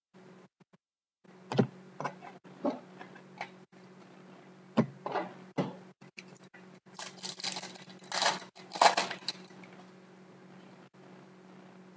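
Trading cards being handled: scattered clicks, taps and short rustles as cards are slid and shuffled, with a longer flurry of rustling about seven to nine seconds in.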